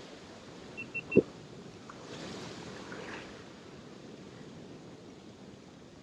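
Sea surf washing and churning against the foot of a rock ledge, a steady wash of water. Three quick high chirps just under a second in are followed by a sharp knock, the loudest sound.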